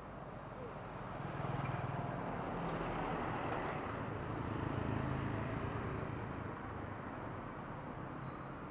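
Motorbikes passing on a road, their engine and tyre noise swelling about a second in and fading slowly away.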